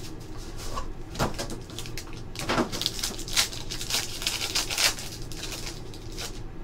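Crinkling and tearing of a gold foil trading-card pack wrapper being pulled open by hand: irregular crackling rustles, a few louder tears among them.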